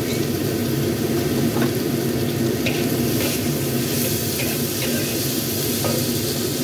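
Diced jicama sizzling in hot oil in a wok, stirred and tossed with a metal wok spatula that scrapes and clicks against the pan now and then, over a steady low hum.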